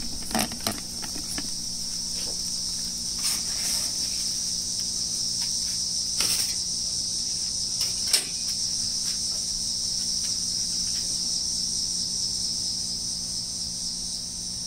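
Insects chirring in a steady, high-pitched chorus. A few short knocks and clatters come over it as the pizza is handled, the sharpest about eight seconds in.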